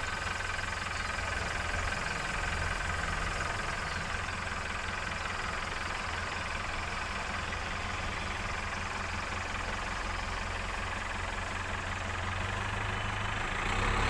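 Heavy diesel engines running steadily at low revs: a backhoe loader close by and a loaded tipper truck driving off.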